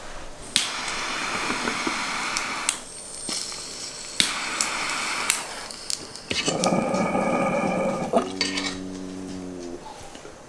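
Water bubbling through a tall glass bong as smoke is drawn through it, in several long pulls with short pauses between. Near the end a steady voiced tone as the smoke is breathed out.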